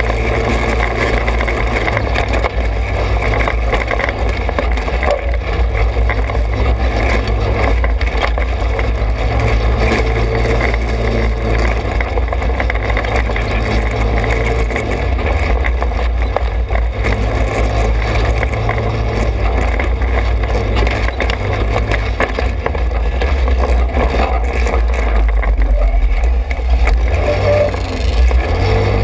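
Trailmaster 200 XRX pit bike's small single-cylinder four-stroke engine running while riding a dirt trail, its pitch easing and picking up a little several times with the throttle. A rough noise rides over the engine throughout.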